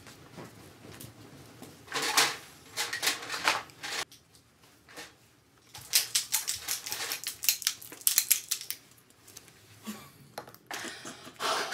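Rapid clicking and rattling of makeup tools and product containers being handled on a cart, in two busy stretches, about two seconds in and again about six seconds in.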